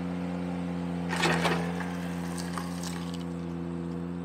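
Ventrac 4520Z tractor running steadily while its power rake works loose gravel on the driveway, with a loud burst of crunching, rattling stones about a second in and a few lighter clicks after.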